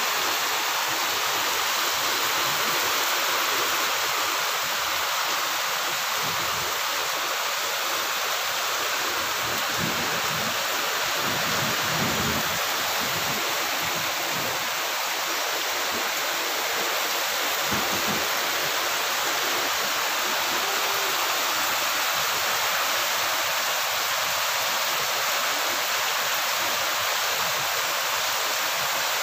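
Heavy rain falling steadily on trees and garden plants, with water pouring off a roof's edge. There are a few brief faint low rumbles, about a third of the way in, again just before the middle, and a little past it.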